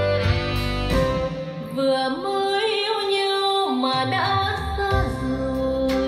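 Recorded music with a singing voice over held instrumental notes, played back through JBL L100 Century speakers driven by a Marantz 4400 receiver as a hi-fi sound demonstration. The bass drops out for a couple of seconds midway, then returns.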